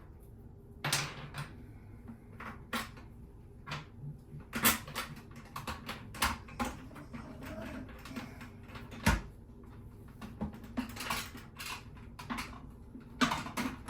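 Irregular clicks and knocks of a toilet seat and a bidet attachment's mounting bracket being handled and fitted together, with the seat bolts being fed back through.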